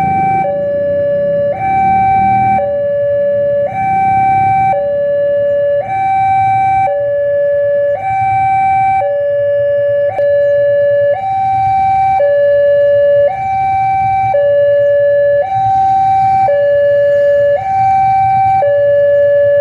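Railway level-crossing warning alarm sounding a continuous electronic two-tone hi-lo signal. Each tone lasts about a second and the pattern repeats without a break, with a low rumble underneath.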